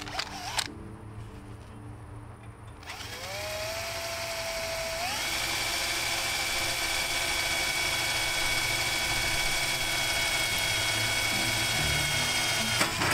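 An electric power tool's motor starts about three seconds in. Its whine climbs in two steps, then holds steady and high for about seven seconds before cutting off abruptly near the end.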